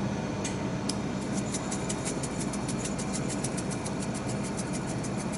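Salt sprinkled by hand over pieces of ray wing in a stainless steel tray: from about a second in, a quick run of fine, sharp ticks, several a second, as the grains land. A steady low machine hum runs underneath.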